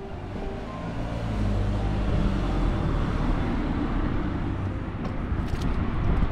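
A motor vehicle driving past close by on the street, its low engine rumble swelling about a second in and staying loud.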